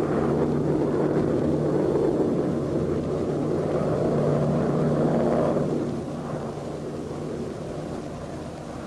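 Low drone of an aircraft engine mixed with rushing wind. It holds steady, then drops to a quieter rumble about six seconds in.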